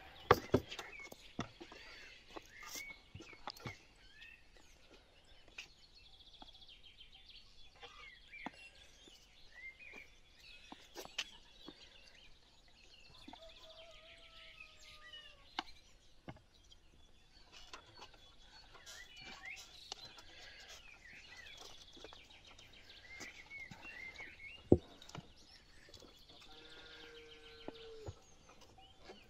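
Small birds chirping, with scattered sharp knocks and taps, the loudest just after the start and about 25 seconds in.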